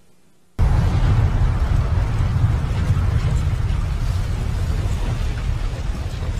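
A remote-controlled Boeing 727 airliner crashing into desert ground: a sudden loud onset about half a second in, then a continuous heavy rumbling roar as the jet hits and ploughs through the sand.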